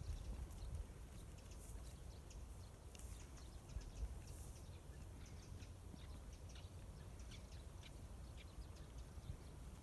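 Faint, scattered crunches and ticks of footsteps moving through snow, over a low rumble.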